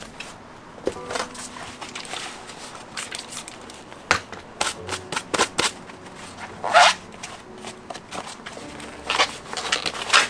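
A leather boot upper handled and folded by hand: irregular rustles, creases and light clicks, with the loudest crease about seven seconds in.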